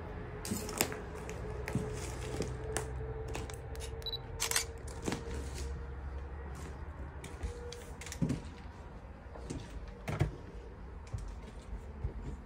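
Irregular clicks, taps and light crunches of footsteps on a debris-littered floor, over a low steady rumble.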